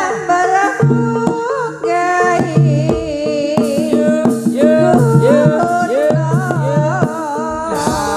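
Live Javanese jaranan gamelan music: a woman sings a wavering, ornamented melody over regular kendang drum strokes and a steady held tone.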